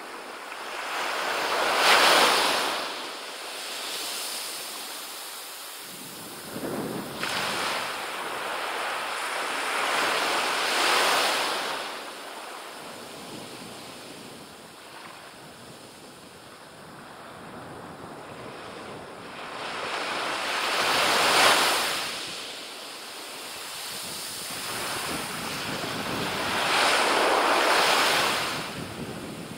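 Small waves breaking and washing up a sandy beach. The surf rises and falls in slow surges several seconds apart, with the loudest about two seconds in and around twenty-one seconds in.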